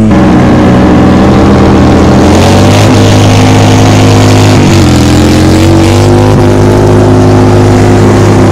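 Motorcycle engine running loud and close, held at steady revs, its pitch dipping and rising slightly a few times.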